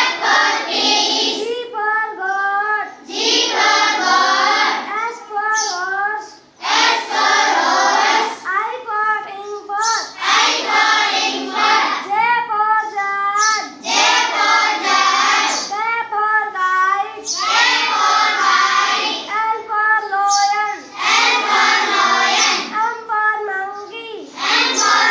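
A child's voice singing an alphabet chant in short repeating phrases, a new phrase about every three to four seconds.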